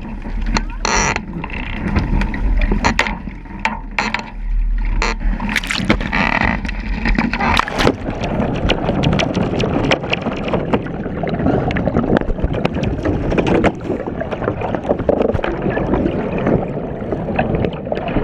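Water rushing and splashing around a sailing catamaran in heavy wind and waves, with steady wind rumble on the camera microphone and many sharp spray hits.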